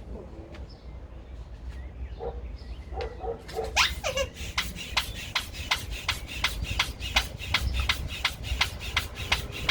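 Manual air pump being worked steadily to inflate a BOSU balance ball: rapid, evenly spaced pumping strokes, about three to four a second, starting a few seconds in, with a short squeak as the pumping gets going.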